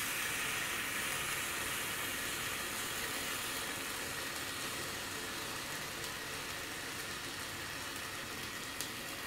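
Molten lead hissing and sizzling in a damp sand mould just after pouring, a steady hiss that slowly fades, with a single small click near the end.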